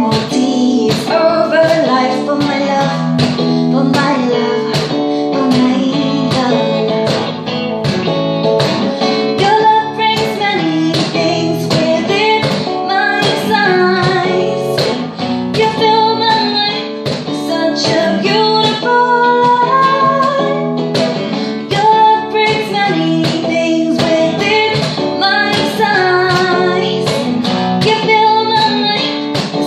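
A woman sings a melody over a hollow-body electric guitar playing chords, with a steady percussive beat. The performance runs continuously.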